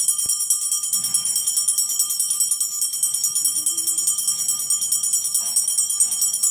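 A bell rung rapidly and without a break, a bright high ringing pulsing several times a second. It is the feeding signal telling the bears it is dinner time.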